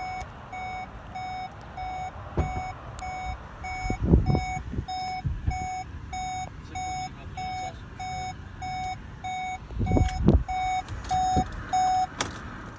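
Volkswagen Golf GTD's dashboard warning chime beeping steadily, a little under twice a second, and stopping shortly before the end. A few low thumps of handling sound alongside it.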